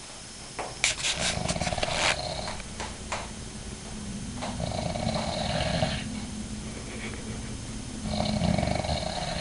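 A man snoring: a deep rattling snore, with three harsher snoring breaths about three seconds apart.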